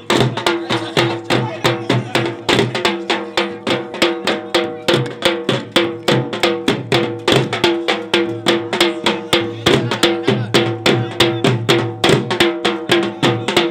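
Live attan dance music: a drum beating a fast, steady rhythm, about three beats a second, under a held melody note.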